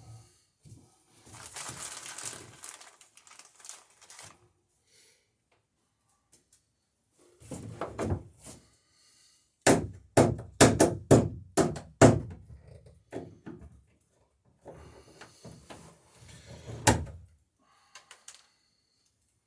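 Hammer blows riveting a wooden dory's planking: a quick run of about seven sharp strikes, about three a second, then scattered knocks with one loud blow near the end. A rustling, scraping stretch of handling noise comes early on.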